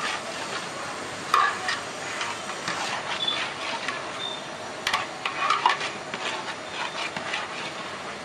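A long metal spatula stirring and scraping through a wet mix of onions, tomatoes and herbs in a large aluminium pot, with repeated scrapes and knocks of metal on metal. The loudest knocks come about a second and a half in and again about five seconds in.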